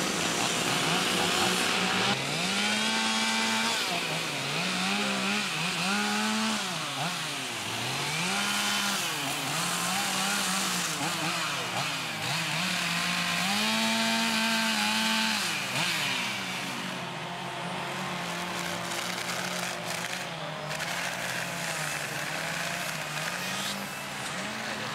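Chainsaws fitted with carving bars, revving up and down over and over as they cut into wood, the engine pitch rising and falling every second or two and sometimes overlapping. In the last third the saws settle to a steadier, slightly quieter running.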